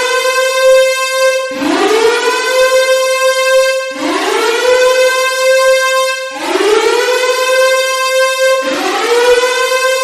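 Civil-defence warning siren wailing: a loud rising whine that climbs and levels off into a steady high tone. It starts a new rise about every two and a half seconds, four times, each rise beginning under the still-sounding tone of the last.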